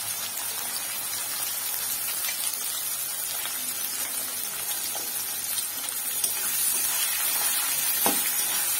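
Freshly added chopped onions sizzling in hot oil in a kadai, a steady hiss. Near the end a metal spatula knocks and scrapes against the pan as they are stirred.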